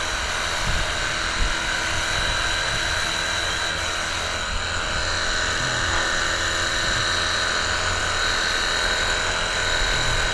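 Cordless electric pressure washer's small pump motor running steadily on its high setting, a constant high whine over the hiss of the water jet.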